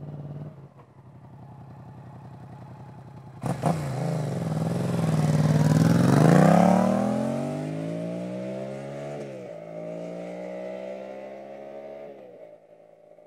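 Yamaha MT-07's 689 cc parallel-twin engine through an Akrapovic titanium full exhaust, pulling away and then suddenly opened up hard about three and a half seconds in. The engine note climbs, is loudest around six seconds in, drops with an upshift about nine seconds in, climbs again and fades near the end.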